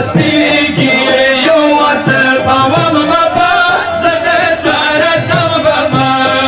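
Pashto devotional song: chant-like singing over music.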